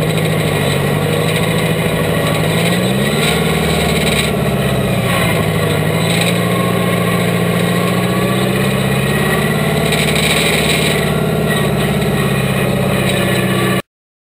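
Diesel pulling tractor's engine running, revving up about three seconds in and settling back to steady revs. The sound cuts off suddenly near the end.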